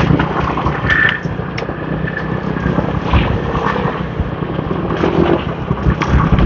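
Motorbike traffic on a city street: a steady low engine rumble from scooters moving nearby.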